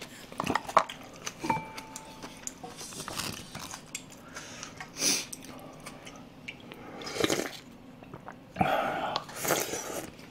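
Close-miked eating of pork-and-rice soup (dwaeji-gukbap): wet chewing with small clicks, and several louder slurps of broth from a wooden spoon, the longest near the end.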